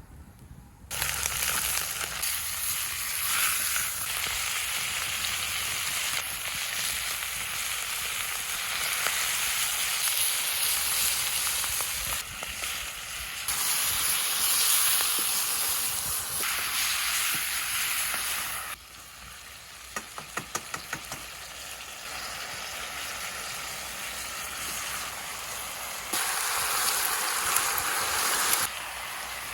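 Food frying and sizzling hard in a hot pan as it is stirred, in several edited pieces that jump in loudness. About two-thirds of the way through it drops quieter, with a quick run of small clicks, likely utensil taps.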